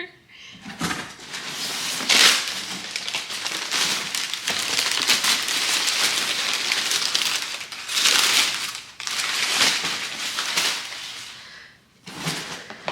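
A cardboard delivery box and the packaging inside it being torn open and handled: dense crackling and crinkling with many small clicks, loudest about two seconds in and again near eight seconds, dying away shortly before the end.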